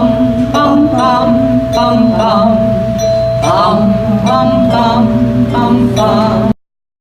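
Music: voices singing a song with an instrument holding one steady note beneath them. The sound cuts off abruptly about six and a half seconds in.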